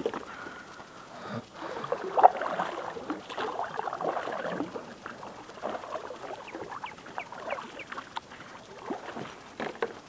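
Water splashing and dripping around a kayak as it is manoeuvred, busiest in the first half, followed by scattered small clicks and drips.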